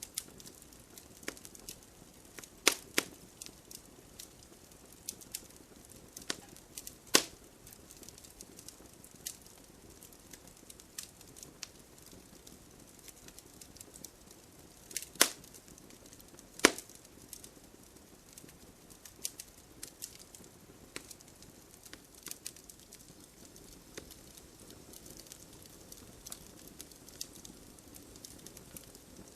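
Wood fire burning in a fireplace, crackling with irregular pops and snaps over a soft hiss. A few pops stand out louder: about three seconds in, around seven seconds, and two close together near the middle.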